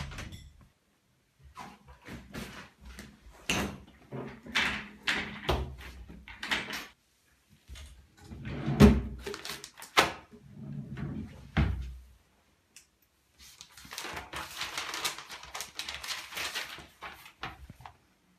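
Indoor handling sounds: a door shutting at the start, knocks and clatter as a desk drawer is pulled open and rummaged in about nine seconds in, then a few seconds of paper rustling as exercise-book pages are turned.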